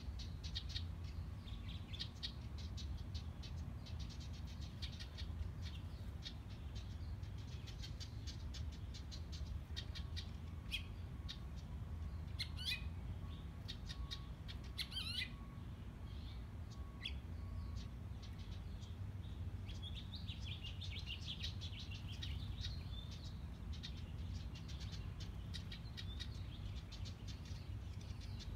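House wren calling: a rapid chattering run at the start, scattered single high notes in the middle, and a dense run of song about twenty seconds in, over a steady low hum.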